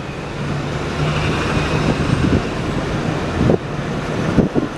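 Single-deck city bus driving past close by, its engine running with a steady hum, with wind buffeting the microphone in a few short gusts.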